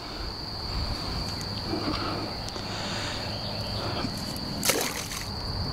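A steady insect chorus holding one high pitch throughout, with low rumbling noise underneath. About five seconds in comes a brief rustling burst.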